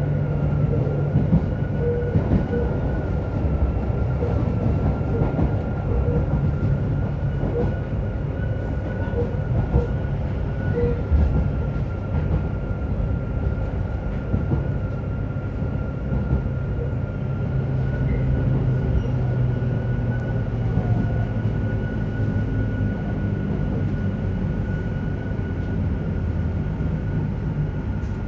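Running noise inside a JR Hokkaido 731-series electric train car, MoHa 731-109: a heavy low rumble from the traction motors and wheels, with a thin steady high tone over it. The motor roar comes from the Otaru-end bogie and sounds like an old nose-suspended (tsurikake) motor, an abnormal noise that the owner expects to be fixed by maintenance.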